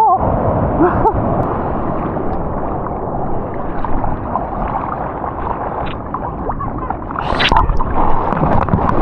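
Churning surf and whitewater heard close up from a mouth-held GoPro in the water, with a few short bubbling gurgles near the start and a louder rush of breaking water about seven seconds in.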